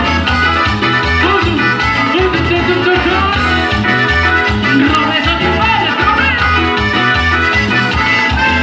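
Latin dance band music, with a steady pulsing bass beat under melodic instrument lines.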